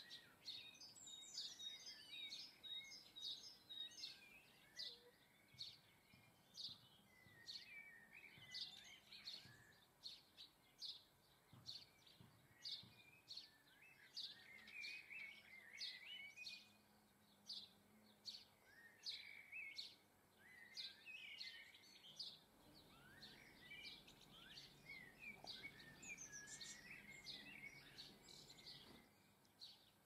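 Faint chirps and twittering calls of small songbirds, coming thick and fast with short pauses between bursts.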